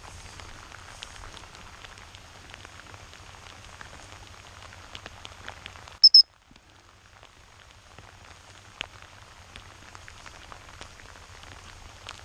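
Steady rain pattering, with scattered small drop ticks. About six seconds in come two quick, sharp blasts on a high-pitched dog whistle, much louder than the rain.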